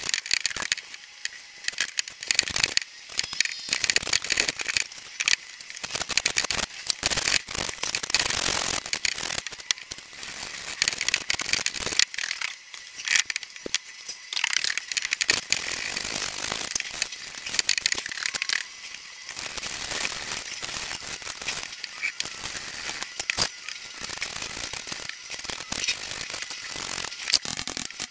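Steel stove flue pipe being twisted and worked in its collar on top of a log burner, grating and clicking as the hardened fire-cement seal in the joint breaks up. It comes as a dense run of rapid clicks and scraping in stop-start spurts.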